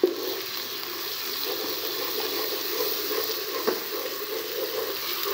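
Garlic paste tipped into hot desi ghee and fried onions in a pot: a sudden burst of sizzling as it hits the fat, then steady sizzling as a spatula stirs, with one knock of the spatula on the pot about halfway through.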